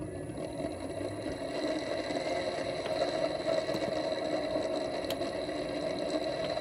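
Three-phase electric motor run by an XSY-AT1 variable frequency drive, humming steadily with a high-pitched whine on top. It grows louder over the first two seconds, then holds steady.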